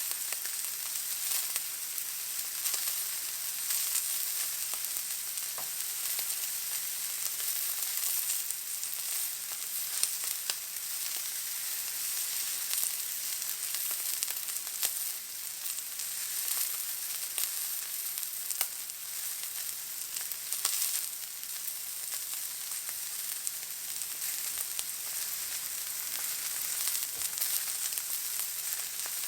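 Steak searing in a hot pan: a steady sizzle of fat and juices, thick with small crackles and the odd sharper pop.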